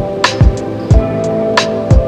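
Background music with a steady beat: kick drum and crisp cymbal-like hits under sustained melodic notes.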